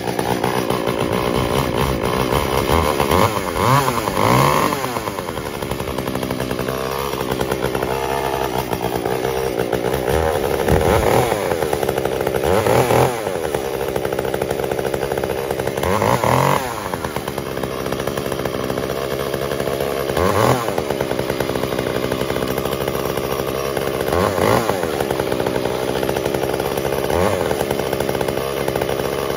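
Echo CS-345 two-stroke chainsaw cutting into wood, its engine pitch rising and then dropping again every few seconds. The engine bogs down when the chain is pressed into the wood, which the owner takes for a high-speed carburetor mixture set slightly too lean.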